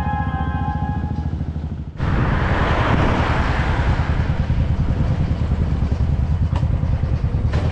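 Royal Enfield motorcycle engine running at road speed with a fast, steady low pulse, and wind rushing on the microphone. The sound jumps louder about two seconds in.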